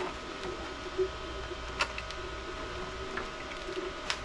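A few sharp clicks and taps of 3D-printed plastic armor parts as the articulated gauntlet hand and forearm are moved, over a steady background hum.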